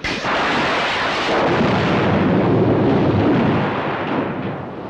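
Film sound effect of a magical power attack: a loud, noisy rumble that starts abruptly, holds for about four seconds and fades toward the end.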